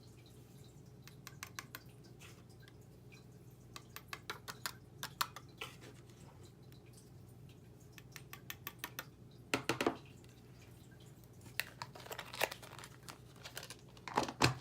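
Scattered light clicks, taps and rustles of a small container and cardstock being handled while copper embossing powder is applied, with a louder knock about ten seconds in and another near the end.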